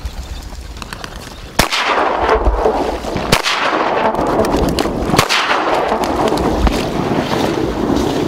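Three shotgun shots about two seconds apart at a passing flock of ducks, each followed by a rolling echo.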